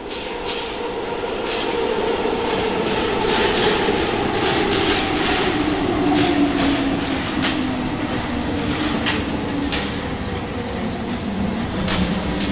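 RATP MF67 steel-wheeled metro train pulling into a station and slowing. Its running noise builds over the first two seconds, the wheels click over the rail joints, and a motor whine falls steadily in pitch as the train brakes.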